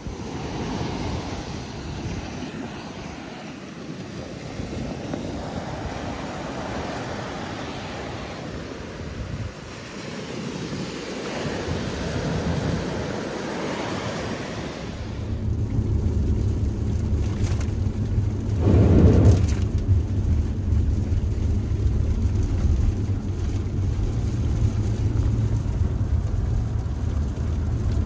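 Surf breaking and washing up the beach in slow swells. About halfway through it gives way to the steady low hum of a car's engine and road noise heard inside the cabin, with one louder rush a few seconds after the change.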